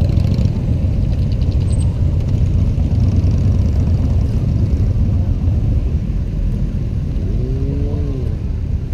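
Honda PCX scooter engine running with a steady low rumble as the scooter rolls slowly.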